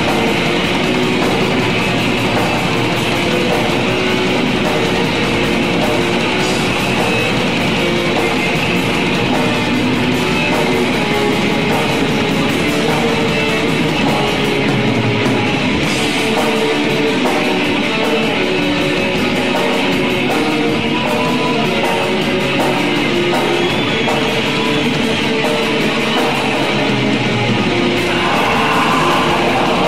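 A metal band playing live, electric guitars and bass in a dense, steady wall of sound.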